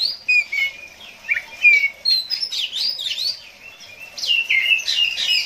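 Oriental magpie-robin singing: a fast run of varied whistled notes that sweep up and down, with a brief pause a little after three seconds before a fresh burst of song.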